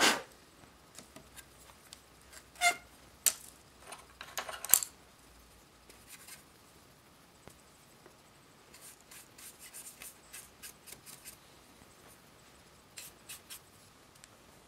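Small workbench handling sounds: a few sharp clicks and knocks of tools and jars being picked up and set down, some with a brief ringing clink, in the first five seconds. Later a run of light scratching strokes, about four a second, as a paintbrush scrubs weathering powder onto a plastic HO-scale model hopper car, and a few soft ticks near the end.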